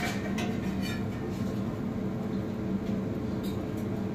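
A metal spatula scraping under a pancake in a large oiled frying pan, a few short scrapes near the start and again about three and a half seconds in, over a steady low hum.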